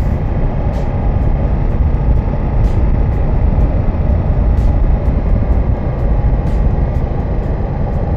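A Ducati Multistrada V4S's V4 engine running steadily while the motorcycle is ridden, heavily masked by wind rushing over the helmet or bike-mounted microphone.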